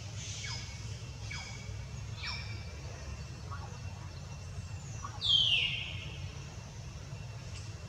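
High-pitched animal calls: three quick chirps that each fall in pitch in the first couple of seconds, then one louder, longer falling call a little after the middle, over a low steady rumble.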